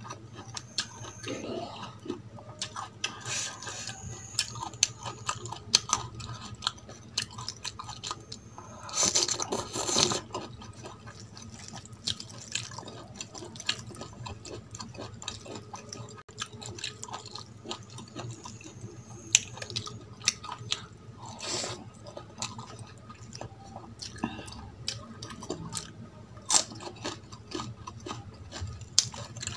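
Close-miked wet squelching and clicking of cooked rice being mixed with curry gravy by hand on a steel plate, together with chewing. There is a louder stretch about nine seconds in.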